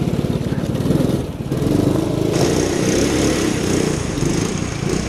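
Small gas go-kart engine in a Power Wheels Mustang running hard under throttle. The revs dip briefly about one and a half seconds in, then pick up again.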